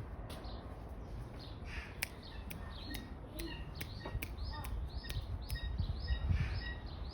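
A bird calling in a series of short, sharp, high chirps, about two a second, starting about two seconds in, over a low rumble.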